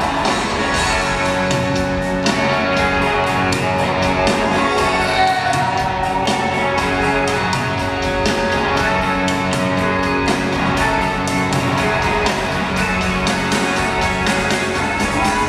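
Live rock band playing an instrumental passage: electric guitars over a steady drum beat, loud and even throughout.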